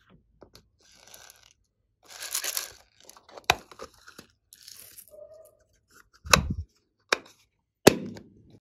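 A hard plastic cake-shaped slime container being worked open by hand: scraping and rustling of plastic, then sharp plastic clicks and snaps, one about three and a half seconds in and three more near the end.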